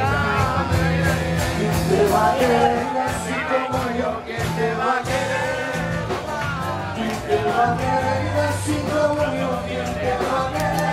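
Loud party music with a singing voice over a steady drum beat and bass.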